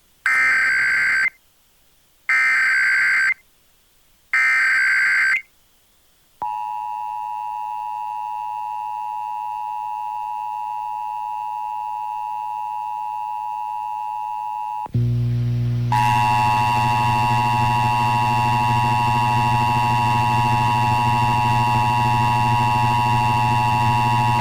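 Emergency Alert System test on FM radio: three one-second bursts of screeching digital header data, then the steady two-tone EAS attention signal. About 15 seconds in, the tone turns louder and buzzier, with a strong low hum under it.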